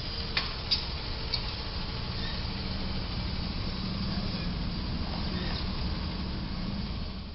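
Street traffic at an intersection: a low, steady engine rumble as a box truck pulls away, with a few short sharp clicks within the first second and a half.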